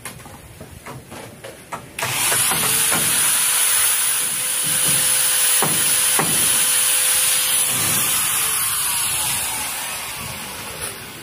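A few light taps, then an electric angle grinder switched on about two seconds in. It runs steadily with a high whine for about six seconds, then is switched off and winds down, its pitch falling as it fades.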